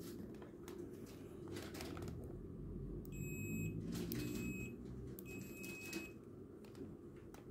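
Digital multimeter's continuity buzzer beeping three times, each a short steady high tone, as the test probes are touched together. Clicks and rustle of the probe leads being handled.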